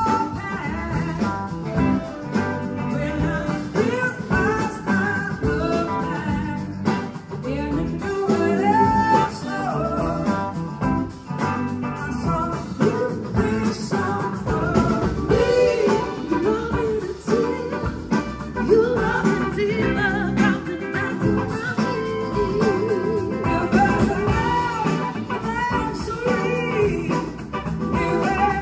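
Live blues-rock band playing: a woman sings lead over electric guitars and drums.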